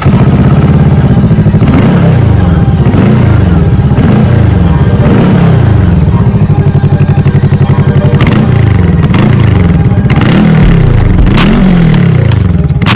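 Moxiao 500RR motorcycle engine being revved over and over, the throttle blipped up and back down about once every second or less, each rev rising and falling in pitch.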